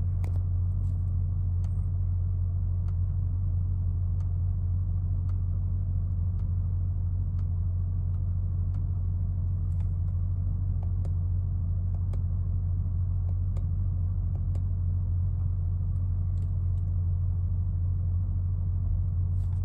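Mercedes-Benz SL500's 5.0-litre V8 idling steadily in Park, heard from inside the cabin as an even low hum.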